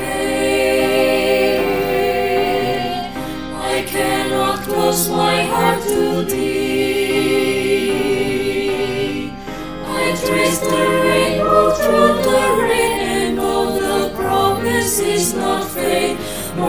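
Mixed choir of men and women singing held, flowing phrases in harmony. It breaks off briefly about halfway through, then goes on.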